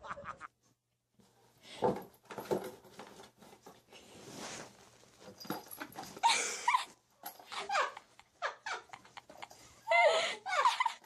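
A small dog with a box stuck over its head gives short whining cries, loudest about six seconds in and again near the end, amid scattered knocks and rustles as it moves.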